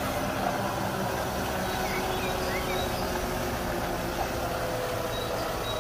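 Four-axle dump truck's diesel engine running steadily as the truck drives up a dirt slope.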